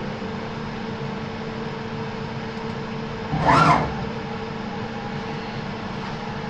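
CNC mill's axis drives humming steadily, with a short whine about three and a half seconds in that rises and falls in pitch as the axes move the tool into position over the laser tool setter.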